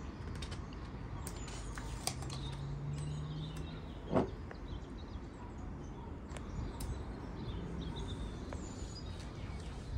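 Light clicks and taps of kitchen items being handled, with one dull thump about four seconds in and a brief low hum shortly before it. Faint bird chirping sits in the background.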